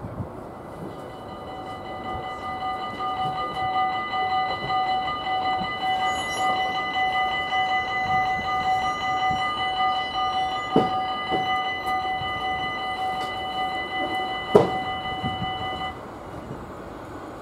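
Dutch level-crossing warning bell ringing steadily while the barriers lower, starting about a second in and stopping abruptly once they are down. Two sharp knocks come near the end, the second the loudest sound of all.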